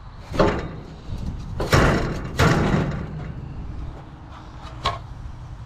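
Metal knocks and scrapes as a pool heater's copper heat exchanger is lifted out of its sheet-metal cabinet: a knock about half a second in, two longer scraping clatters around two seconds in, and a sharp click near the end.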